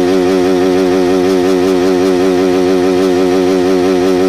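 KTM RC 200's single-cylinder engine held at full throttle on the rev limiter with the bike in neutral, the pitch pinned steady with a fast, even warble as the limiter cuts in and out.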